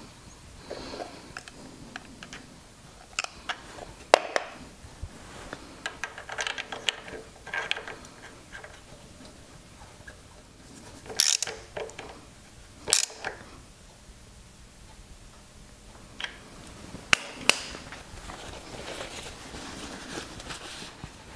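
Scattered metallic clicks and taps as small parts and a tool are handled at a motorcycle engine's crankcase, with a few short scraping rustles in between.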